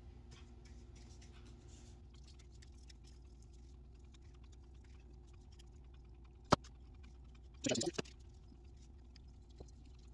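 Quiet handling of small wooden drawers and a paintbrush on a workbench: faint scratchy brush strokes, a single sharp tap about six and a half seconds in, and a brief rustle near eight seconds.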